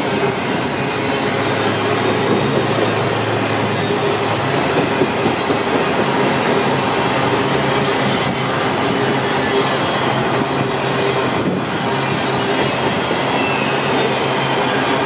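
A grain train's freight cars roll past, the rumble of the wheels on the rails under a steady howl made of several held tones. The source of the howl is unknown to the person filming.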